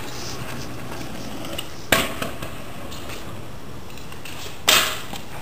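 Stunt scooter knocking on concrete: two sharp impacts over a steady rolling noise, one about two seconds in and a longer, louder clatter near the end.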